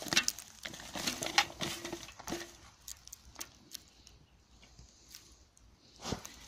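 A dog rummaging with its head inside a rusted metal tub full of dead leaves and debris: rustling, crackling and scraping clicks, busiest in the first two seconds, with a louder knock about six seconds in.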